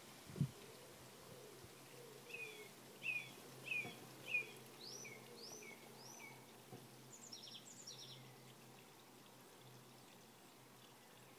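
A low thump about half a second in, then a garden songbird singing: four quick falling notes, three rising whistled notes, then a few high chirps, over a faint steady hum.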